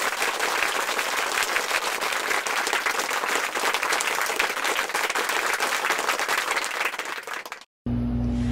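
Applause, many hands clapping steadily, which trails off and cuts out abruptly about seven and a half seconds in.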